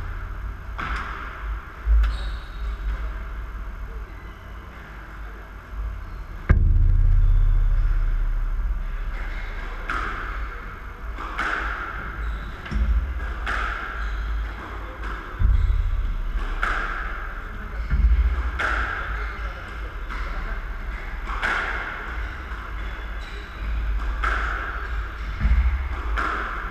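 Squash rally in a court: sharp smacks of the ball off racket strings and walls, each ringing briefly in the court, coming about every one to two seconds after a sparser start, with heavy low thuds among them.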